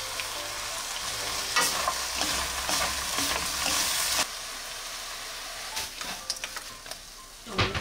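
Lotus root slices sizzling in a syrupy glaze in a nonstick wok while being stirred with wooden spoons. The sizzle is louder for the first four seconds or so, then drops suddenly, with a few light clicks and scrapes of the spoons against the pan afterwards.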